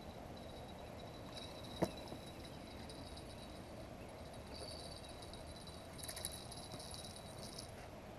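Quiet outdoor ambience with a steady high insect buzz, one sharp click about two seconds in, and a stretch of high crackling between about six and seven and a half seconds.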